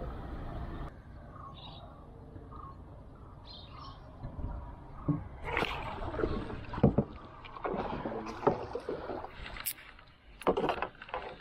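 Water splashing and knocks on a wooden canoe's hull as a small hooked fish is played and landed in the boat. The clatter comes in irregular bursts in the second half, loudest about seven seconds in.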